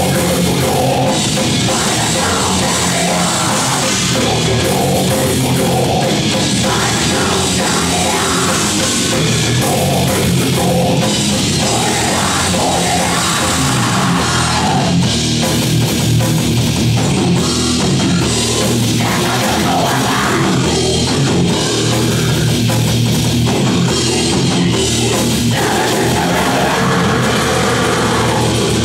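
Heavy metal band playing live: electric guitars and a drum kit, loud and dense with no let-up.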